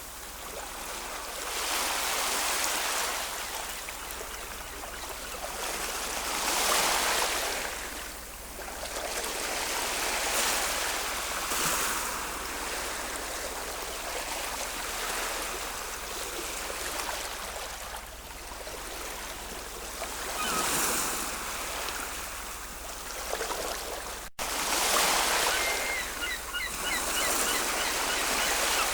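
Ocean waves breaking and washing ashore, swelling and falling every few seconds. Faint bird calls come in near the end.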